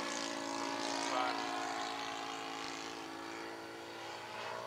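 Radio-controlled model Spitfire's engine and propeller droning steadily in flight, fading a little as the plane draws away and swelling slightly again near the end.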